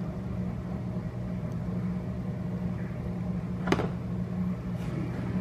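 A steady low mechanical hum, with one sharp click a little past halfway through.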